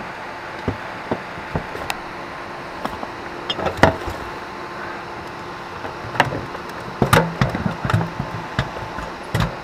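Scattered knocks and clunks of gear and feet against an aluminium fishing boat, the loudest about four seconds in and a quick run of them near the end, over a steady rushing background.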